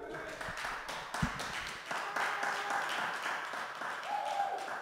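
Hand clapping from a small group: dense, irregular claps, with a short steady tone sounding briefly about four seconds in.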